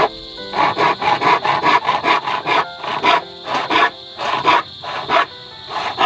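Handsaw cutting through an old wooden plank: quick back-and-forth rasping strokes, several a second, broken by short pauses.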